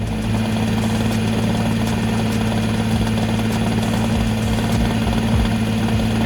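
Nissan GT-R R35's twin-turbo V6 idling steadily with a rattle, the idle rattle typical of play in the flywheel housing bearing.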